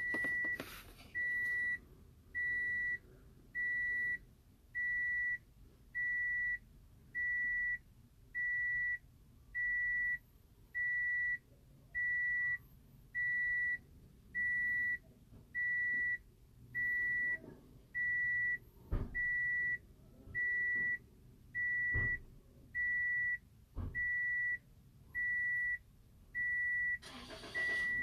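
An electronic beep repeating steadily about once a second, each beep about half a second long, during a key-adding wait for the anti-theft lights to go out. A few sharp clicks fall in the last third.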